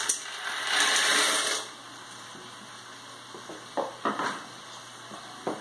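Penne pasta poured from a bowl into a pot on the stove: a noisy pour lasting about a second and a half. A few light knocks follow about four seconds in, as the plastic bowl is put down on the table.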